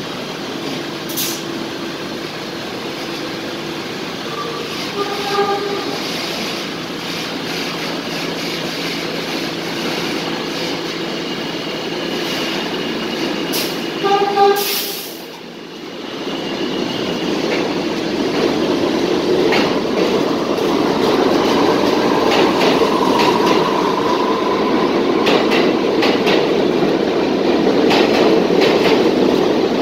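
New York subway R68A car on the B train: two short chime tones while it stands at the platform, a loud burst of air hiss halfway through, then the train pulls out, its running noise and wheel clatter building with a faint motor whine as it gathers speed.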